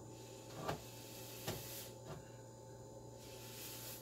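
Quiet room with a steady low hum and light hiss, and two soft clicks about a second apart near the start.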